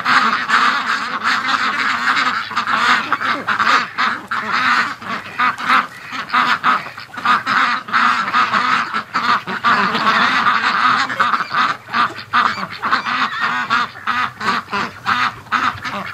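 A large flock of Pekin ducks quacking continuously, many loud calls overlapping into one chorus.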